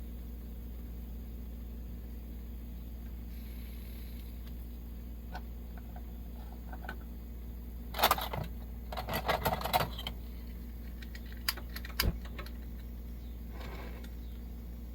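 Light metallic clicking and rattling, a busy cluster about eight seconds in and a couple of sharp clicks around twelve seconds, over a steady low hum. It fits the metal parts of a vintage Coleman stove being handled.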